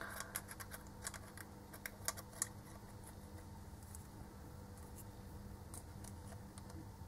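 Faint small clicks and crackles of diagonal cutters gripping and levering at the base housing of an E14 LED bulb, mostly in the first couple of seconds, sparser after.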